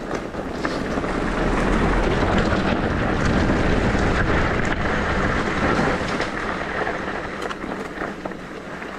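Rushing wind on the microphone and tyre noise from a downhill e-bike ride, with a few sharp clicks and rattles. The rush grows louder about a second in and eases off over the last few seconds.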